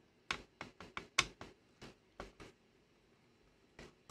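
Light clicks and taps of hands and a screwdriver handling a VCR tape mechanism's metal chassis: a string of about nine short clicks, then a pause with one faint tick near the end.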